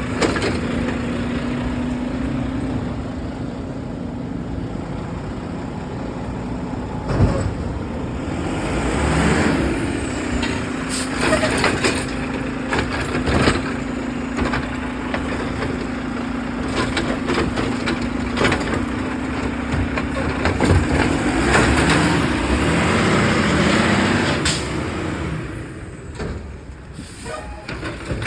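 Garbage truck running, with a steady engine drone, hisses of air-brake air and several sharp knocks and bangs; the drone fades in the last few seconds.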